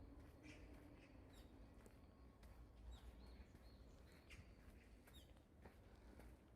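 Faint birds chirping: a series of short, high calls scattered throughout, over a low background rumble.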